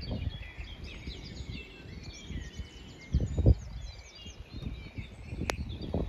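Several songbirds chirping and singing in quick overlapping phrases, over gusts of storm wind buffeting the microphone, the strongest gust about three seconds in. A single sharp click near the end.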